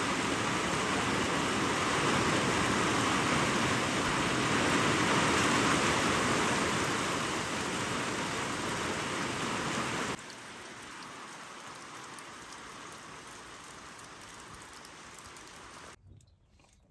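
Steady rain falling and splashing. The rain drops suddenly to a quieter level about ten seconds in and dies away near the end.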